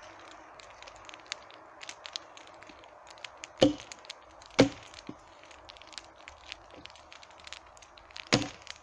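Wood campfire crackling, a steady run of small pops, with three loud sharp cracks about three and a half seconds in, a second later, and near the end.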